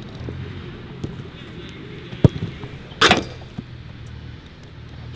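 Footballs being kicked in a passing drill: a sharp thud a little over two seconds in, then a louder, harder strike about a second later, with a few faint taps between, over a faint low steady hum.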